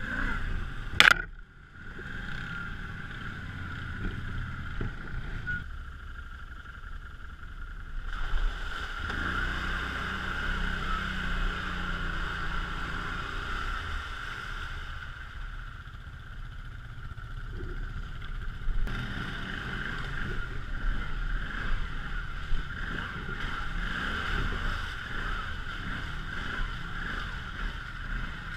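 Quad (ATV) engine running on a woodland dirt trail, heard on board, with a sharp knock about a second in and the engine picking up speed around nine seconds in.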